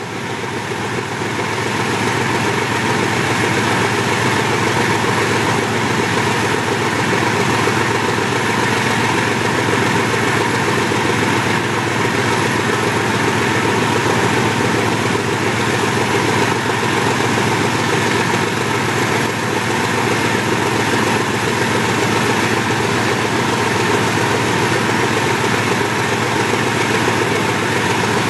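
GE U23B diesel-electric locomotive's 12-cylinder FDL-12 diesel engine running hard under a self load test, its power dumped into the load box. It swells up over the first couple of seconds, then holds a loud, steady note.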